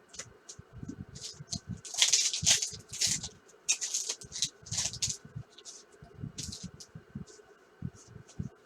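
Baseball trading cards being handled and flipped through, cards sliding against one another in a string of short papery swishes and light taps, busiest about two to three seconds in.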